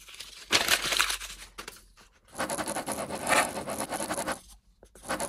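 Scraping and rubbing of a cardboard kit box being handled, in several bursts of a second or two each.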